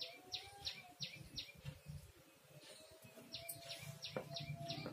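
A small bird chirping repeatedly, a quick run of short falling chirps about three a second that stops for a second or two midway and then resumes.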